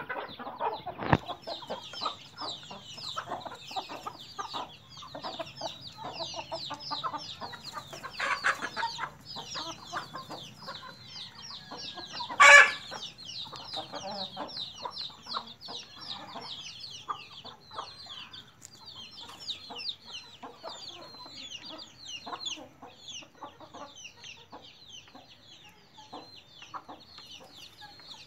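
Backyard desi chickens with their chicks: the chicks peep continuously in many short, high calls while hens cluck underneath. One brief, loud chicken call stands out about twelve seconds in.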